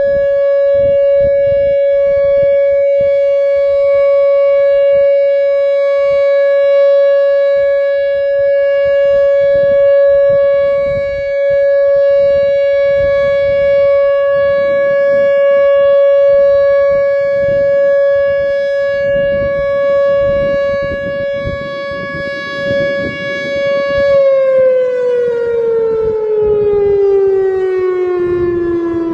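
Whelen WPS-2910 electronic speaker warning siren sounding its single steady Alert tone, loud and unwavering. About 24 seconds in, the tone glides steadily down in pitch as the three-minute test signal ends.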